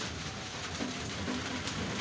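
Heavy rain falling steadily on trees and grass: a dense, even hiss with faint scattered drop ticks.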